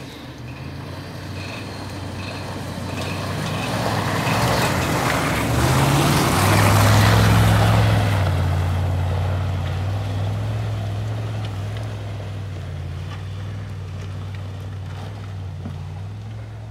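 Jeep Grand Cherokee's engine pulling the SUV up a muddy, leaf-covered track, with its tyres churning through mud and leaves. It grows louder as the vehicle passes close by about seven seconds in, then fades slowly as it climbs away.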